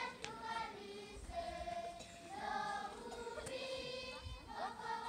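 A large group of schoolchildren singing together as a choir, in phrases of held notes with short breaks between them.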